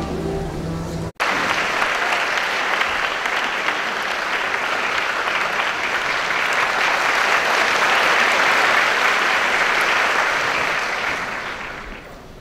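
A second of music that cuts off abruptly, then an audience applauding steadily, dying away near the end.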